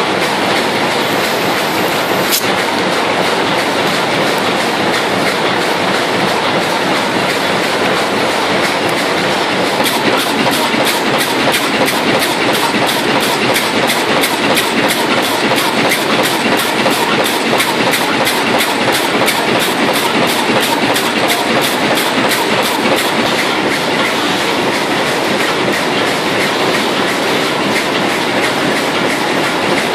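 High-speed bag-on-roll plastic bag making machine running at production speed, a loud steady mechanical clatter. From about ten seconds in, a rapid regular clicking of about three a second comes through.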